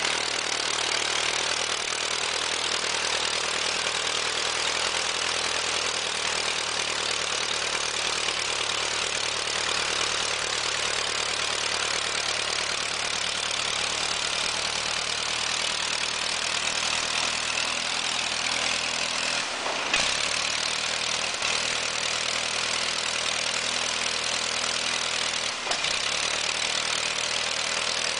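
HAL HT-2 trainer's four-cylinder inline piston engine idling steadily with the propeller turning, a strong rushing hiss over the engine's low note. Two brief knocks in the later part.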